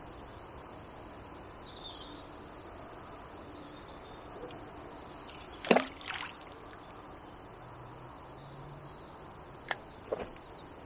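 A short cast with a barbel rod: the lead and large paste-wrapped boilie plop into the river about halfway through, the loudest sound here. Two short sharp clicks follow near the end.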